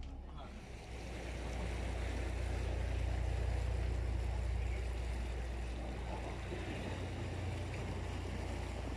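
Canal cruise boat under way: a steady low engine hum under a wash of water and wind noise that swells about a second in.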